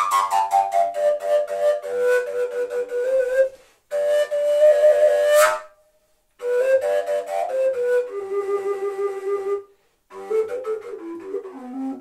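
Two-piece fujara in G, the long Slovak overtone flute, playing melodic phrases. It opens on a falling run of high overtone notes, and the melody stops for brief breaks three times.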